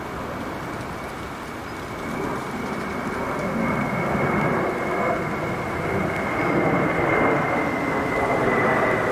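Airbus A319-131's twin IAE V2500 turbofan engines at climb power overhead: a broad rumbling jet noise that grows louder from about two seconds in, with a steady high fan whine that strengthens through the second half.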